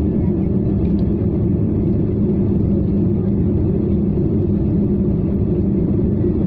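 Steady cabin noise of a jet airliner climbing after takeoff: engine and airflow drone heard from inside the cabin, even and unchanging, with a low hum running through it.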